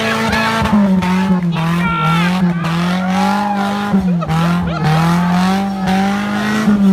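Off-road 4x4's engine working hard under load, its revs repeatedly dipping and rising as it struggles for grip, with tyres squealing.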